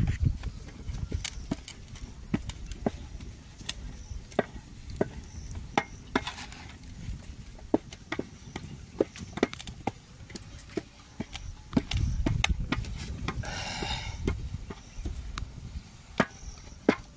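Wooden stirring stick knocking and scraping against a metal pot as thick ugali (stiff maize-meal porridge) is worked and pressed, in sharp irregular knocks about one or two a second.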